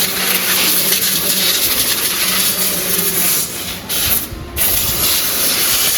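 Loud, steady hissing spray of air or liquid from a nozzle, cutting out briefly twice about four seconds in.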